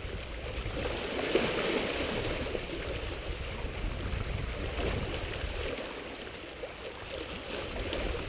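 Small sea waves lapping and gurgling against shoreline rocks, over a low rumble.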